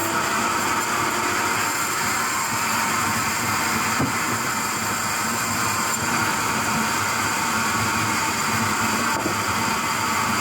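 Steady machine noise, a continuous even drone with faint steady tones that neither rises nor falls.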